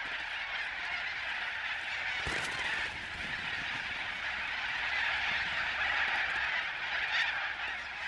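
Large flock of little corellas screeching: a dense, continuous din of harsh overlapping calls.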